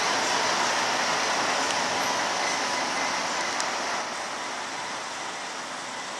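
Newag 6Dg shunting locomotive and Bombardier Traxx F140 diesel locomotive running light along the track together: a steady, loud rush of running and wheel noise that drops off after about four seconds as they move away.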